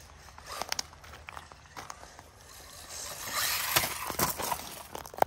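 Rlaarlo 1:14 brushless RC buggy driving over loose gravel, its tyres crunching and scattering stones. The sound is scattered small clicks at first and grows louder about three seconds in.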